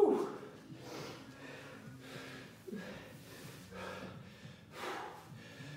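A man breathing hard, out of breath after a Tabata round of kettlebell swings: one loud exhale at the start, then quieter heavy breaths about once a second.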